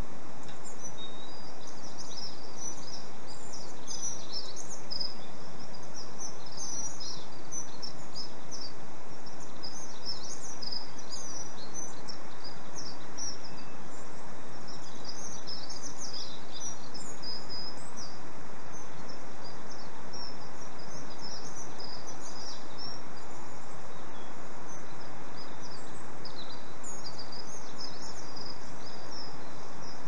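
Small songbirds chirping and twittering, many short high calls overlapping, over a steady background hiss.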